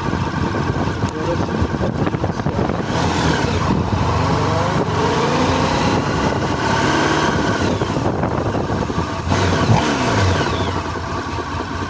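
Honda VFR1200F's V4 engine accelerating hard through first and second gear. The engine note rises in pitch several times, with short dips at the gear changes, and it echoes off tunnel walls.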